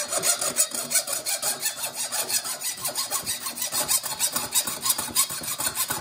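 Hand hacksaw cutting through a brass faucet part held in a vise, in quick, even back-and-forth strokes of the blade rasping on the metal.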